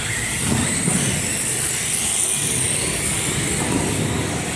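Radio-controlled off-road race cars running around a dirt track: a steady, unbroken motor and tyre noise with a high-pitched whine on top.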